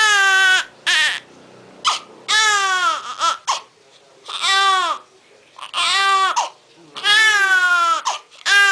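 Newborn baby crying: a string of about seven short wails, each rising and then falling in pitch, with brief pauses between them.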